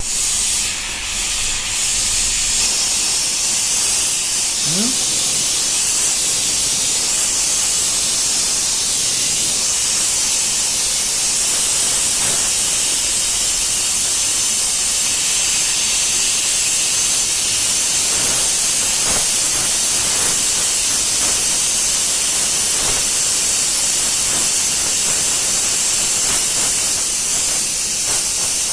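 Electric arc welding on a broken motorcycle footrest holder: a steady, loud frying hiss with faint crackles.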